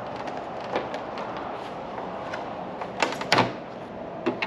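Sharp clicks and knocks from a rear spoiler being handled and pressed onto a car's trunk lid, the loudest cluster about three seconds in, over a steady background hum.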